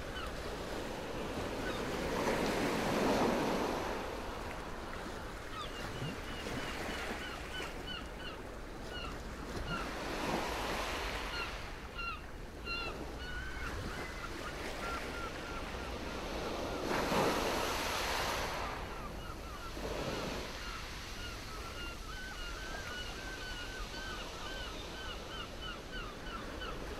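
Small sea waves washing against the shore, swelling every few seconds, with a continual chatter of short waterbird calls over them.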